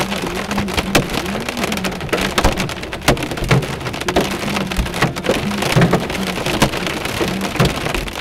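Hail and heavy rain pelting the car's roof and windshield, heard from inside the stopped car: a steady downpour hiss with frequent sharp, irregular knocks of hailstones.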